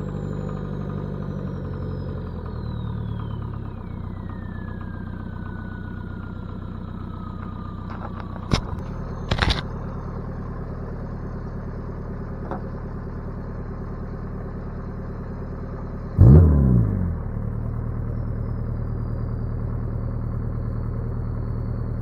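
VW 1.7 turbo diesel with a VNT-15 turbo running, its turbo whine falling steadily in pitch over the first several seconds as the engine settles to idle. Two sharp clicks come about halfway through, and a short louder burst comes later. The engine cuts off at the very end as it is shut down.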